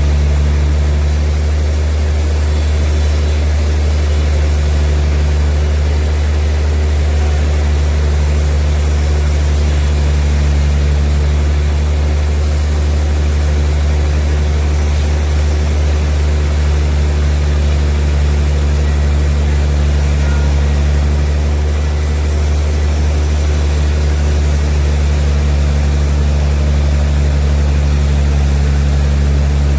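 Large sawmill machinery running steadily: a loud, deep, unchanging hum with no pauses or changes in pitch.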